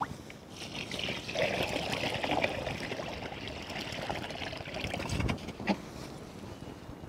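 Water pouring from a plastic jerrycan into an aluminium pot of soaked basmati rice, splashing onto the rice to rinse it; the pour tapers off about five seconds in, followed by a short knock.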